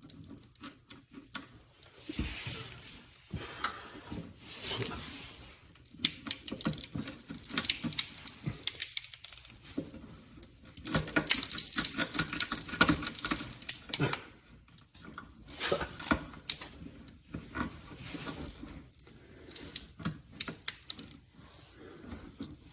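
Hands and tools working on the air suspension compressor's fittings under a car: scattered clicks, scrapes and rattles, with a busier stretch of rapid clicking and scraping around the middle.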